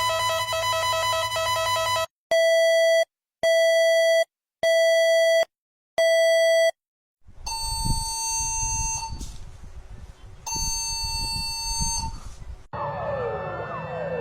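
Electronic emergency alert tones in a sequence: a steady buzzing tone, then four evenly spaced beeps just over a second apart, then two longer higher tones over a low rumble. Near the end a siren starts, with several overlapping rising and falling wails.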